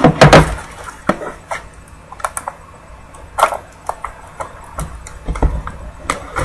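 Hands handling a small sealed cardboard trading-card box: scattered taps, knocks and crinkles, with scissors brought to the wrapper and starting to cut near the end.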